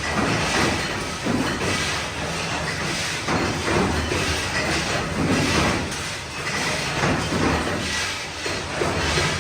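Factory machinery running, with a steady hum under repeated metallic knocks about once a second.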